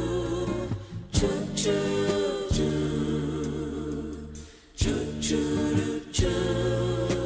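Background music: a song carried by voices singing in harmony, with a new chord struck every second or few.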